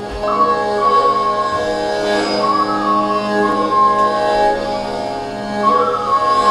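Music from a stage play's score: a slow, wavering melody held over a steady low drone.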